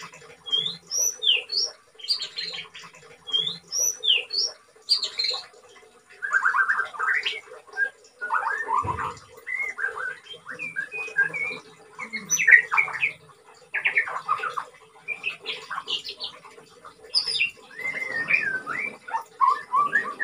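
A white-rumped shama (murai batu) in its molt, singing freely from its covered cage. It gives varied whistled phrases, sliding notes and quick high chirps, repeated with short pauses between them.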